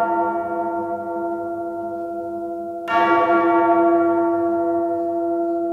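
A large bell tolling: the ringing of one stroke fades slowly, then a second stroke rings out about three seconds in.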